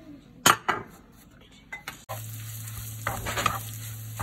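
A wooden spatula knocks twice on a glass plate about half a second in. From about two seconds in, ready-made doner meat sizzles in a frying pan with a steady hiss and a low hum underneath, and is stirred and scraped with the wooden spatula.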